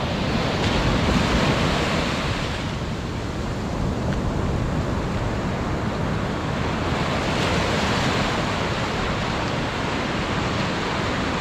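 Ocean surf breaking and washing up the beach in a steady rush. It swells louder twice, once a second or two in and again about seven seconds in.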